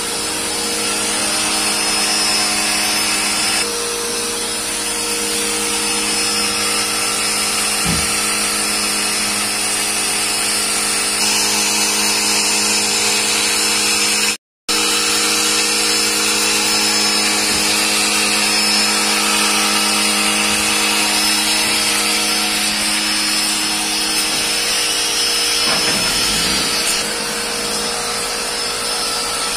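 A small electric motor running steadily with a loud hiss, cutting out completely for a moment about halfway through.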